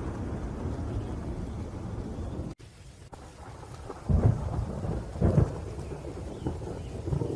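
Thunderstorm: rain with a steady low rumble of thunder that cuts off suddenly about two and a half seconds in. Quieter rain follows, with two sharp thunder claps about four and five seconds in.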